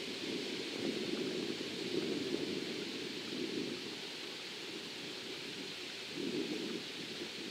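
Wind gusting on the microphone, with leaves rustling: a steady rushing noise with no tone in it, easing off about halfway and picking up again near the end.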